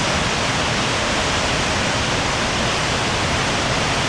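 Steady, loud rush of water pouring over a waterfall.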